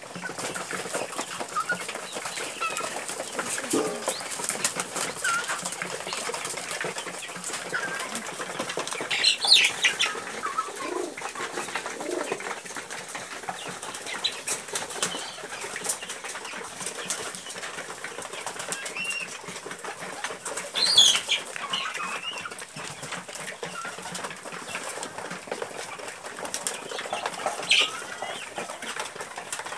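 Pigeons flapping their wings as they take off and land, with a scatter of short clattering taps throughout. A few short bird calls stand out, the loudest about two-thirds of the way through.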